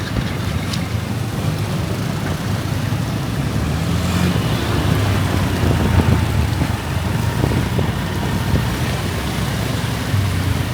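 Steady road traffic noise heard from a motorbike riding through wet city streets: a continuous low rumble of engines and tyres.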